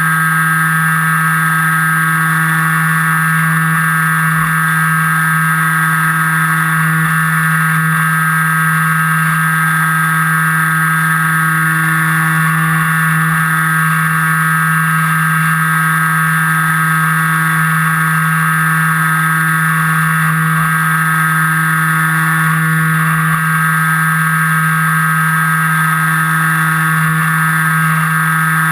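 Electric motor and propeller of an FPV model aircraft running steadily in flight, a constant droning hum with a higher whine above it and no change in pitch.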